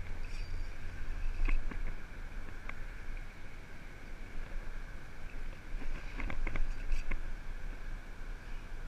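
Wind rumbling on an action-camera microphone, with scattered sharp clicks and ticks, a cluster of them near the end, from a fishing rod and reel being worked while fighting a hooked fish.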